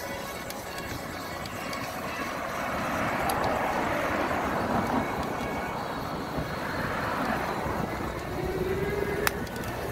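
Street traffic noise: a steady rush that swells as vehicles pass, about three seconds in and again around seven seconds in, with a sharp click near the end.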